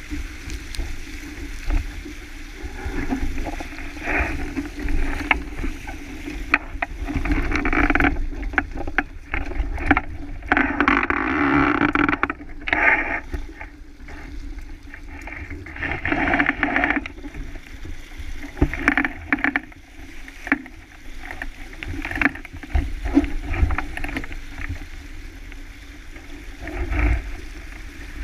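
Water rushing and splashing along the hull of a small sailboat under way, with spray flying off the bow; it surges louder and softer every second or two, with a low rumble of wind on the microphone underneath.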